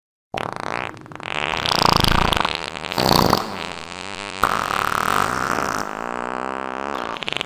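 A long fart sound effect that starts suddenly after a moment of silence. It has loud blasts about two and three seconds in, shifts abruptly into a steadier buzzing stretch, and ends with a wavering pitch.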